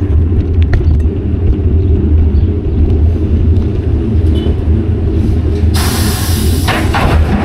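Wind buffeting an action camera's microphone on a moving bicycle: a loud, steady low rumble. About six seconds in, a brief hiss rises over it for about a second, followed by a few small clicks.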